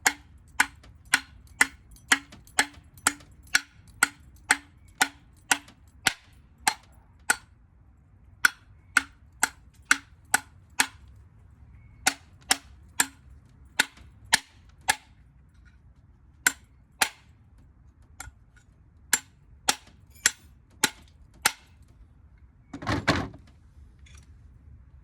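Repeated sharp hammer blows on a ceiling fan motor's metal, about two a second, in runs broken by short pauses, with one duller, longer knock near the end.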